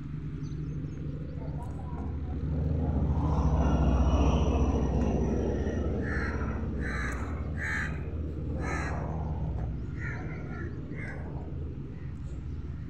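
A bird calling in short harsh caws, about six times between six and eleven seconds in, over a steady low rumble that swells to its loudest about four seconds in.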